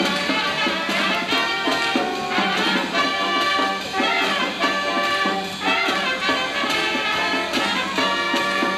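Youth marching band playing live: saxophones, clarinets and brass over bass drum and cymbals, with the drums keeping a steady beat.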